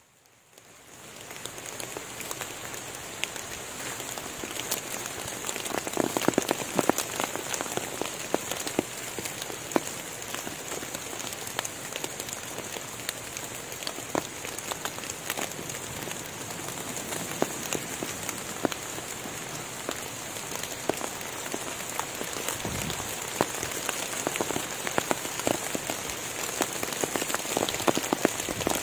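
Steady rain falling on forest foliage and leaf litter, an even patter with many close drops ticking. It fades in from near silence over the first second or two.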